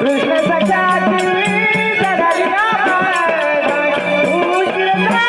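Indian folk devotional music: a wavering, gliding melody over a steady percussion beat.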